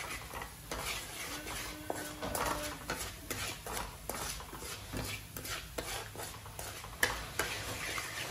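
Wooden spatula stirring and scraping pieces of meat and minced garlic around a metal frying pan, in quick irregular strokes with knocks against the pan, over a light sizzle of frying.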